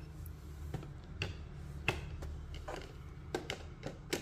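Scattered sharp clicks and taps, about half a dozen, as a blender's plastic lid and glass jar are handled and pressed onto the motor base, over a steady low hum.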